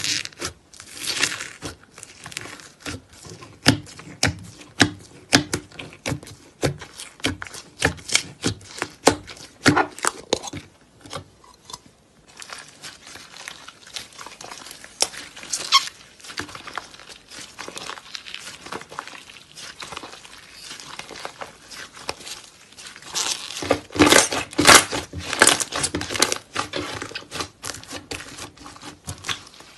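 White slime being poked, stretched and pressed by hand, giving dense, irregular crackles and pops. The crackling eases off for a few seconds about twelve seconds in and grows busier again from about twenty-three seconds.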